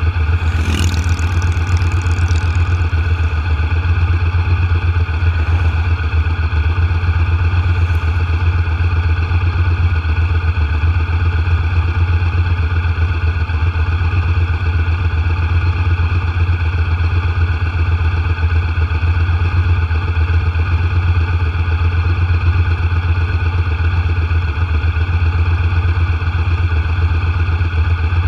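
Steady engine and road drone of a vehicle cruising at constant speed, a low hum that never changes pitch. An oncoming car swishes past about a second in.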